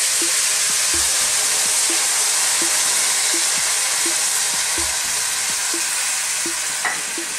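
Hot water poured into a hot dutch pot of seared lamb, hissing and sizzling loudly as it hits the hot pan and meat. The steady hiss eases slightly near the end as the pouring stops.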